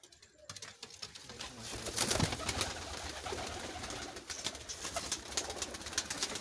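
Domestic pigeons in a loft cooing, mixed with dense rustling, scuffling and sharp clicks that start about half a second in and are loudest around two seconds in.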